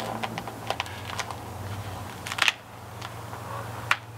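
Scattered clicks and crinkles of window flashing tape being pressed and smoothed by hand along the jamb, with the loudest cluster about two and a half seconds in.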